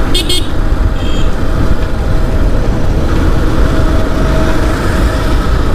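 Wind buffeting the microphone of a moving motorcycle, a dense low rumble over the motorcycle's engine running steadily with a faint constant tone. A couple of brief high-pitched chirps near the start.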